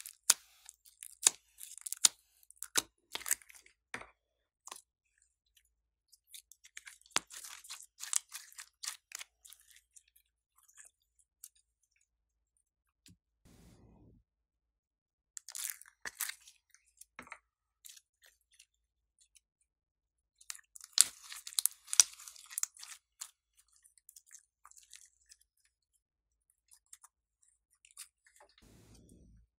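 Glossy slime being pressed and scooped out of small tubs, giving sticky crackling clicks and pops in several bursts, the loudest about two-thirds of the way through.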